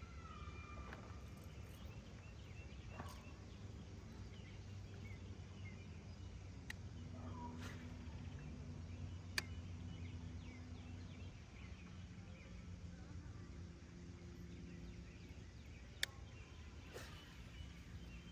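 Faint outdoor evening ambience with occasional short bird calls over a low steady rumble, and a few sharp clicks.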